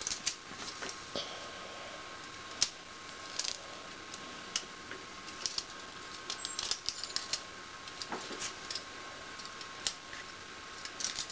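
Scissors snipping through marker-coloured aluminium foil, cutting it into small pieces: irregular sharp little snips and crinkles, one or two a second, over a faint steady hiss.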